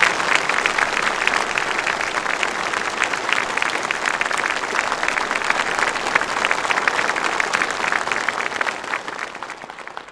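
Applause from a large massed crowd of uniformed soldiers and officials: dense, steady clapping from many hands that dies down near the end.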